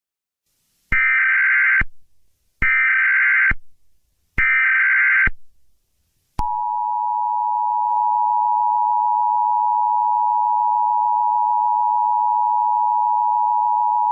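Emergency Alert System alert tones: three short bursts of SAME header data, each about a second long, then the two-tone EAS attention signal starting about six seconds in and holding steady.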